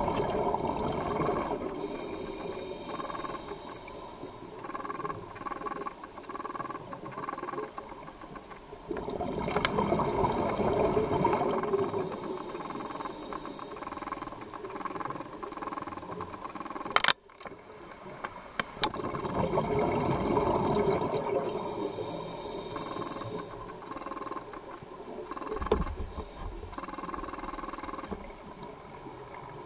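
Scuba regulator breathing: a hiss on each inhalation, then a gush of exhaled bubbles, about three breaths in all. Over it come a few sharp clicks, the loudest a little past halfway.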